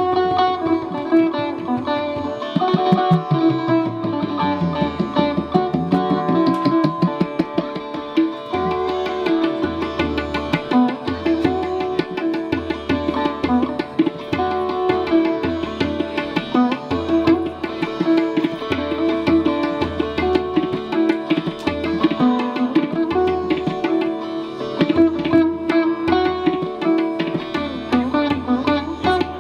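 Sitar playing a melody with bent, gliding notes, joined about eight seconds in by deep drum strokes that keep a steady rhythm.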